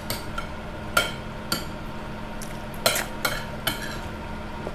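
Cutlery clinking against a plate several times while someone eats, a few sharp separate clinks spread through, with one cluster about three seconds in. A faint steady hum runs underneath.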